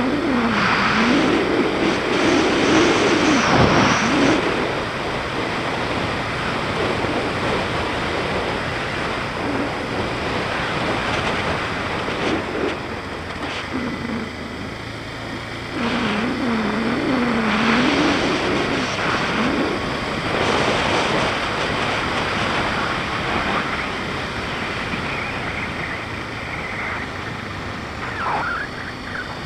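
BMW G650GS single-cylinder engine running under way, its note rising and falling several times as the rider accelerates and eases off, over heavy wind and road noise.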